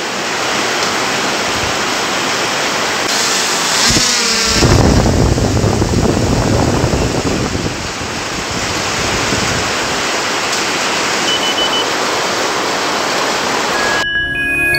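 Steady rain falling, an even hiss that gets louder and heavier about four seconds in. Near the end, a short music jingle with chiming tones begins.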